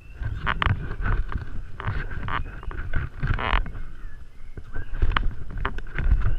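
Irregular crunching of dry bamboo leaf litter, a few bursts a couple of seconds apart, over a steady low rumble of wind on the microphone.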